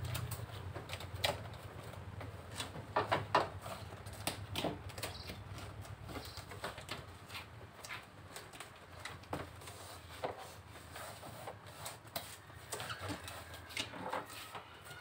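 Scattered light crackles and taps of hands pressing and smoothing a foil-faced heat-insulation sheet onto the underside of a car bonnet, with a cluster of louder taps about three seconds in.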